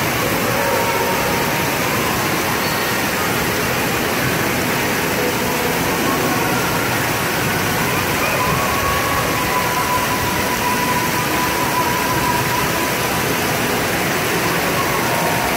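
Steady rush of water pouring down a plastic water slide and splashing into its run-out pool.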